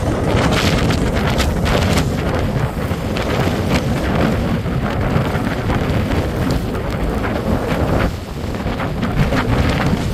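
Strong wind blowing across a phone's microphone: a loud, continuous rumbling rush with crackling gusts, easing briefly about eight seconds in.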